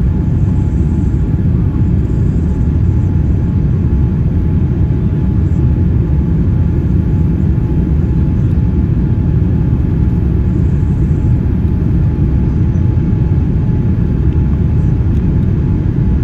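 Steady cabin noise inside a Boeing 787-9 climbing out after takeoff: a low rumble of airflow and its Rolls-Royce Trent 1000 engines at climb power, with a thin steady hum above it.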